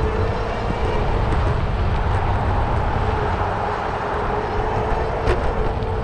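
Riding noise from a bicycle on a city street: wind rumbling on the microphone, with a steady whine throughout and a sharp click about five seconds in.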